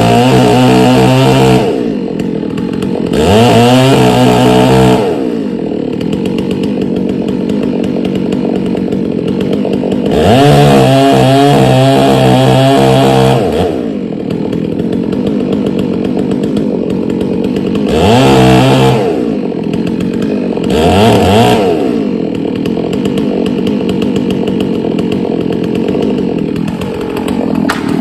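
1997 Dolmar 6800i two-stroke chainsaw revved up to high speed in repeated bursts of one to three seconds, about five times, dropping back to a steady idle between bursts.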